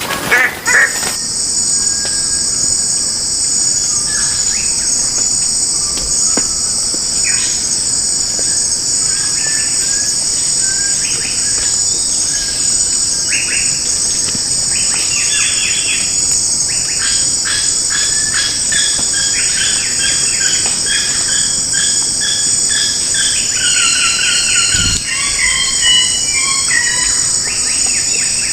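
Steady, high-pitched insect drone with birds calling over it in short, rapid series of notes, busier in the second half.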